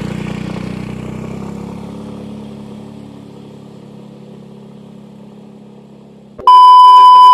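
A steady low humming drone that fades gradually over about six seconds, then a loud, high steady beep that lasts about a second and cuts off abruptly.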